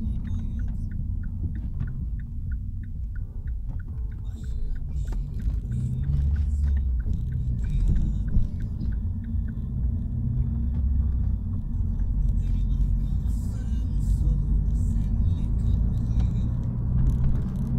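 Opel Vectra's engine and road noise rumbling in the cabin as it drives, getting louder about six seconds in. The turn indicator ticks steadily, about three times a second, through the first half.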